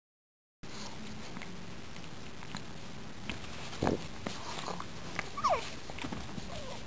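After a moment of silence, pug puppies scuffle over a plush toy: small clicks and bumps on the carpet, one louder thump near the middle, and a brief high whine that falls in pitch a little after halfway.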